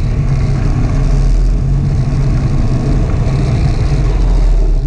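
Snowmobile engine running steadily under way, heard from aboard the moving sled: a loud, even low drone with constant noise over it.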